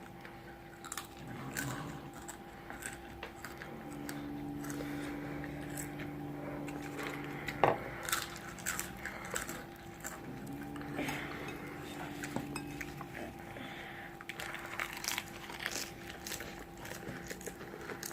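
Close-up crunching and chewing of crispy fried food, with dense crisp crackles throughout and one sharp loud crunch about eight seconds in. A low steady hum comes in twice, for a few seconds each time.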